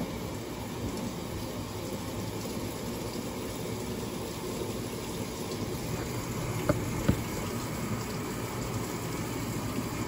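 Midea top-load washing machine filling for the rinse: water streaming steadily from the inlet into the drum onto the clothes, with a low steady hum and two short taps about seven seconds in.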